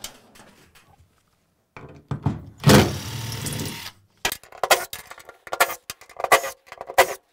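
Cordless impact driver backing out tamper-resistant Torx screws from a metal ring on a battery pack's cover. It runs once for a little under two seconds, the loudest part, and is then followed by a string of sharp clicks and knocks.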